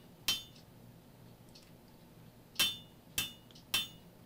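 Hand hammer striking a red-hot 4140 steel axe head on the anvil, drawing out its ears: one blow, a pause of about two seconds, then three blows about half a second apart, each with a short metallic ring.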